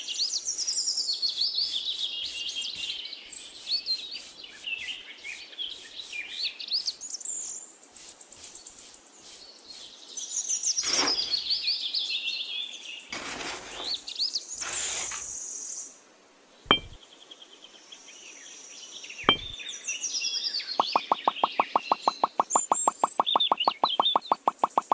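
Small birds chirping and twittering in short rising and falling calls, with a few sharp knocks in the middle. Near the end a fast, even ticking starts, about ten a second.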